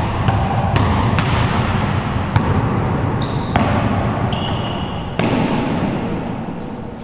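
Basketball bouncing on a hard court floor, a handful of single bounces at irregular intervals rather than a steady dribble, each echoing off the walls of a small enclosed court.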